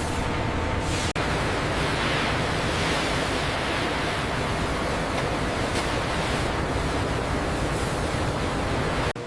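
Steady loud rushing noise of sawmill machinery, broken by a split-second dropout about a second in and again near the end.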